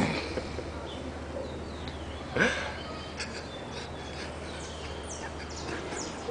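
Someone asleep snoring: a brief snore right at the start and a louder one about two and a half seconds in, over a steady low hum, with short high chirps in the background.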